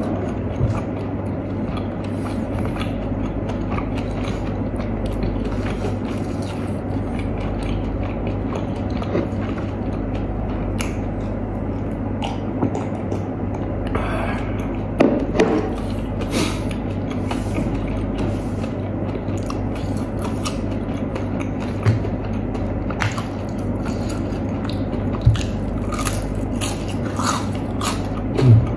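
A person chewing and biting into whole fried chicken, with wet mouth sounds and small clicks over a steady low hum. About halfway through there is a short run of louder sounds as he drinks from a paper cup.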